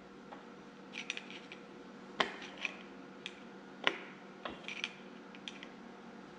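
Faint, irregular metal clicks and scrapes, two of them sharper than the rest, as a hand tool bends a lock-washer tab down into a notch of a nut to lock it.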